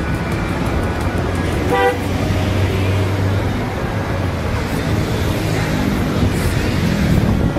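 A single short vehicle horn toot about two seconds in, over steady road traffic noise and rumble.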